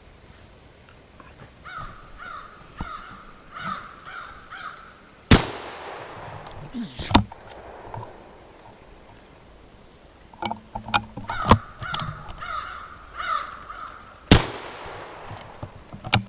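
A bird calling in a quick run of short harsh caws, about two or three a second, broken off by a single loud rifle shot that echoes away over a second or so. The same happens twice, with scattered clicks and knocks between.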